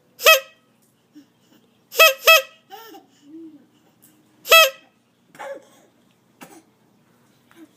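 Goose honking: four loud, short honks (one near the start, a quick pair about two seconds in, and one more about halfway through) with softer calls in between.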